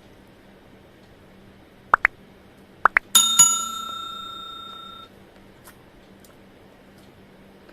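Two pairs of quick rising chirps, then a bell-like metallic ring that fades out over about two seconds.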